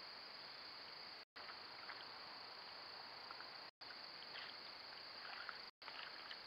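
Faint scattered rustles and light splashes from a beaver working at the water's edge on its dam, more of them in the second half, over a steady high-pitched hiss. The sound cuts out completely three times for a moment.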